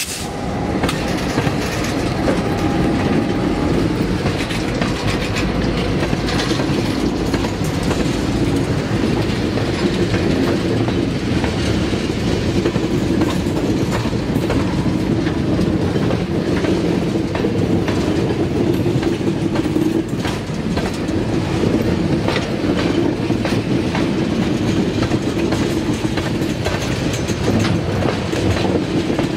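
Freight train of tank cars rolling past close by, with a steady rumble of wheels on rail and repeated clicking as the wheels cross the rail joints.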